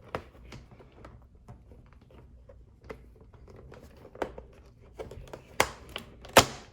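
A toy's cardboard box and plastic packaging being handled and opened: crinkling and light clicks and taps, with a few louder sharp snaps near the end.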